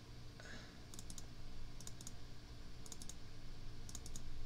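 Clicking at a computer desk: short clusters of three or four quick clicks about once a second, over a steady low hum.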